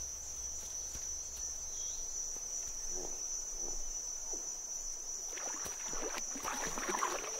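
Insects trilling in one steady high tone, and from about five seconds in, water splashing and sloshing as a hippopotamus wades through a muddy river.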